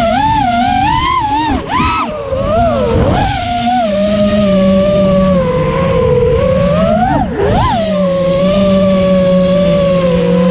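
FPV racing quadcopter's motors and propellers whining, the pitch sliding up and down with the throttle, then cutting off abruptly near the end.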